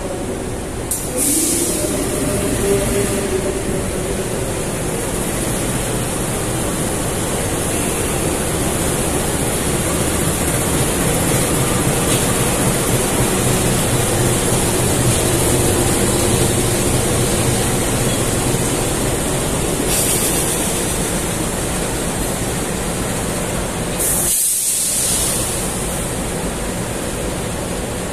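KAI CC 206 diesel-electric locomotive standing with its engine running: a loud, steady rumble and hum. Short hisses come in about a second in and again near the end.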